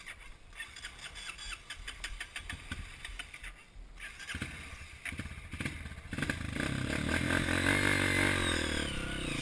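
Off-road trail motorcycle engine revving up and easing back, loud from about six seconds in. Before that, faint irregular clicks and knocks.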